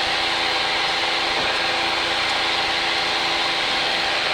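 Light aircraft engine and propeller running at a steady drone, heard from inside the cockpit with a constant hiss over it.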